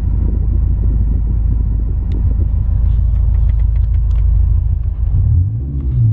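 Renault Clio GT-Line's 1.2 TCe engine running with a steady low rumble, its note shaped by the R-Sound Effect app's simulated engine sound. A few light clicks sound in the middle. Near the end a pitched engine note comes in and wavers up and down as the engine is blipped.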